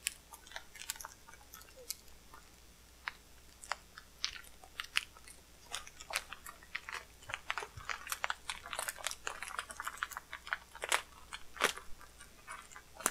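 Knife cutting and hands pulling at plastic packaging wrap: irregular crinkling and crackling, with a couple of louder snaps near the end.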